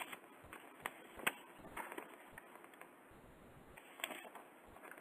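A few short, sharp clicks and taps over faint steady hiss, the loudest a little over a second in.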